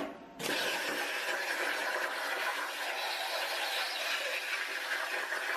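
Cut50L air plasma cutter's torch cutting metal: a click, then a steady, harsh hiss of the plasma arc and compressed air that comes up about half a second in and holds.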